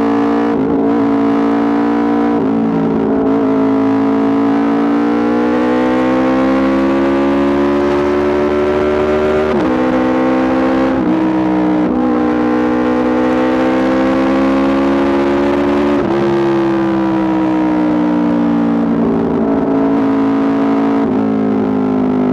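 Aprilia RSV4 RR's V4 engine through an Austin Racing exhaust, pulling up through the gears while ridden. The pitch climbs steadily and drops sharply at each upshift, about a third and about half-way through and again soon after. In the last third it falls away smoothly as the bike rolls off.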